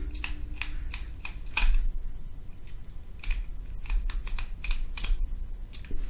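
Small screwdriver tightening the retaining screws of a cable connector plugged into an adapter: a run of irregular light clicks and ticks.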